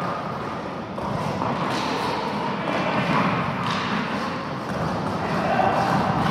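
Roller hockey being played in a sports hall: a steady echoing rumble of play with a couple of sharp knocks, typical of sticks striking the ball.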